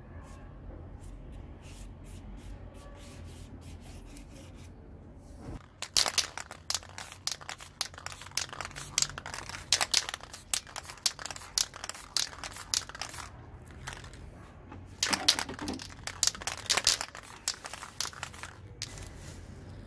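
Paper being crumpled and crinkled by hand: dense irregular crackling in two bouts, the first starting about a quarter of the way in and lasting several seconds, the second shorter and about three-quarters of the way in.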